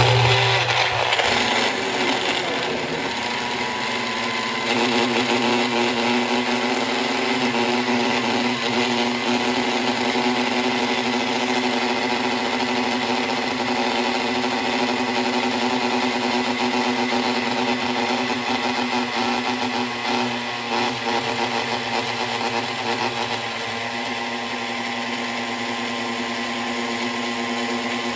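Personal cup blender running steadily, its motor whirring as it blends spinach, watermelon, banana and coconut water into a smoothie. The pitch settles over the first couple of seconds and the sound gets louder a few seconds in.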